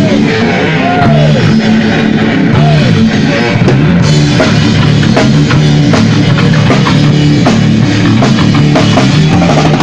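Rock music with a drum kit and electric guitar playing, no vocals.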